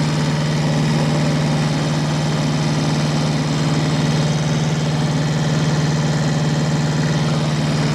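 Diesel tractor engine idling steadily at an even pitch.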